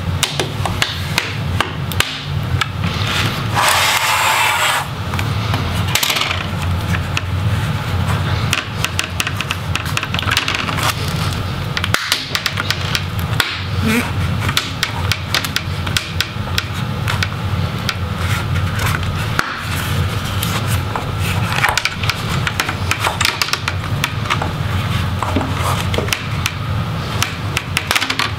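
The thin plastic display bezel of a Dell Inspiron 15 7567 laptop being pried off by hand: many small irregular clicks and snaps as its clips let go and the plastic flexes, with a rubbing scrape about three to five seconds in. A steady low hum runs underneath.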